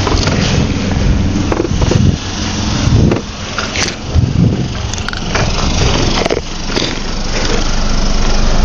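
Road traffic and wind noise: a loud, steady rumble and hiss, with a few short knocks scattered through it.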